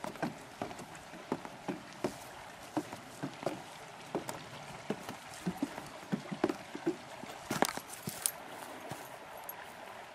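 Footsteps of a person walking down rough wooden steps and on along a dry dirt path with roots and twigs, about two or three steps a second, with louder scuffs and crunches about seven and a half seconds in.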